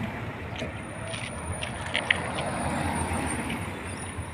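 Road traffic rumbling past, a steady low noise, with a few short clicks about two seconds in.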